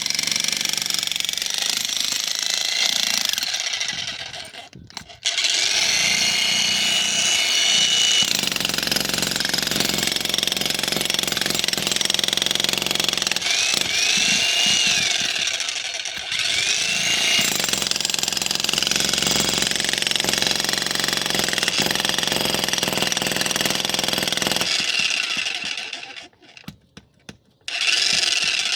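Xtreme Power 2200-watt electric jackhammer hammering into a concrete slab. It runs in long stretches, with a brief stop about five seconds in and another about twenty-five seconds in, then a short final burst near the end.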